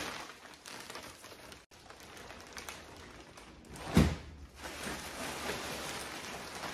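Plastic wrapping being ripped and crinkled off a rolled-up mattress, a steady crackle with one louder sharp tear or knock about four seconds in.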